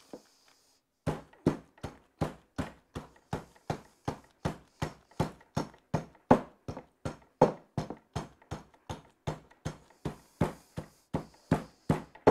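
Marble rolling pin pushed rapidly back and forth over chocolate sandwich cookies in a zip-top plastic bag, crushing them to fine crumbs: a steady rhythm of crunching strokes, about three a second, starting about a second in.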